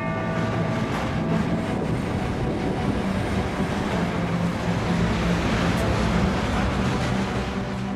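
A passenger train passing close by: a steady rumble and rush of wheels on the rails that keeps on without a break.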